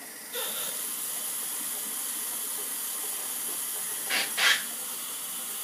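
Steady hiss of a running tap. About four seconds in, a Gillette ProGlide Styler razor cartridge makes two quick scrapes across wet neck stubble.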